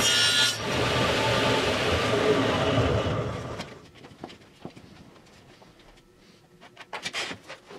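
Table saw running, then switched off about three and a half seconds in and coasting down to a stop. A few light knocks and clicks follow as a wooden drum shell is handled at the saw fence.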